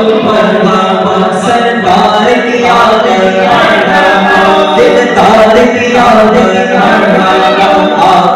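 Men's voices chanting a devotional naat together, unaccompanied and amplified through microphones, loud and unbroken.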